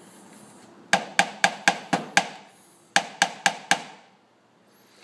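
Nylon-tipped knockdown tool tapped with a hammer handle against a Mini Cooper S hood's sheet metal, knocking down high spots during paintless dent repair. Six quick, sharp taps at about four a second, a short pause, then four more.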